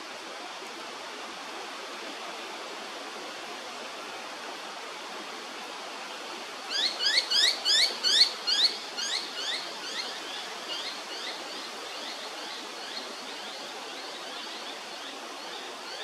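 A bird calls a quick run of short rising notes, about five a second, loudest at the start, then slowing and fading away over several seconds. A steady hiss of background noise lies under it throughout.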